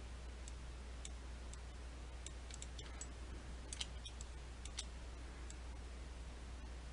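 Faint computer mouse clicks, about a dozen at uneven intervals, over a steady low electrical hum.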